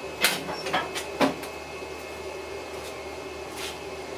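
Hood of a Husqvarna riding lawn mower being tilted open: three quick knocks and clunks in the first second and a half, then a steady faint hum.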